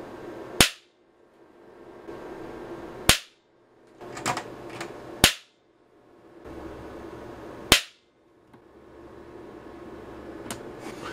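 High-voltage transient generator firing pulses of around 15,000 volts into a multimeter under ESD survival testing: four sharp cracks about two and a half seconds apart, with a few fainter clicks and a hum between them.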